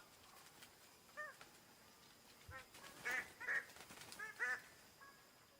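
Bird of paradise calling: short, harsh, nasal honking notes, one about a second in, then a quick run of repeated calls a little past halfway.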